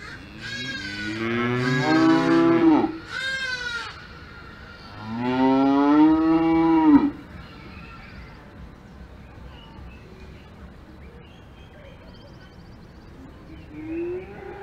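Cows mooing: two long, loud moos, one starting about half a second in and one about five seconds in, with a shorter call between them and a faint low call near the end.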